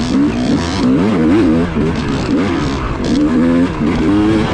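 Yamaha YZ250X two-stroke dirt bike engine running under the rider, its pitch rising and falling every second or so as the throttle is opened and closed.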